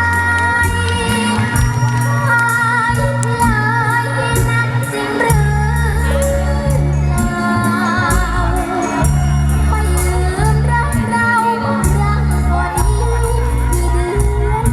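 A girl singing a song into a microphone, her held notes wavering with vibrato, over amplified backing music with a steady bass line and cymbal strokes.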